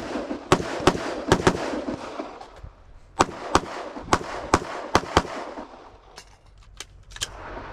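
Live fire at a shooting range: a quick string of rifle shots in the first two seconds, a pause of about a second while the shooter transitions, then a string of pistol shots about three seconds in. A few fainter shots follow near the end.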